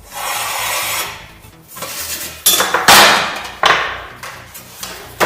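Metal knocks and clatter from the sheet-steel housing being worked, several sharp hits in the second half, after a rushing noise of about a second at the start. Faint background music underneath.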